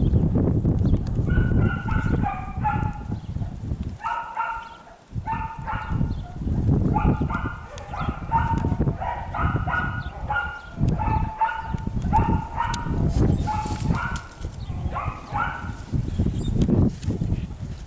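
A dog barking in runs of short, high yips, several a second, with pauses between the runs. Under it is a steady low rumble of wind on the microphone.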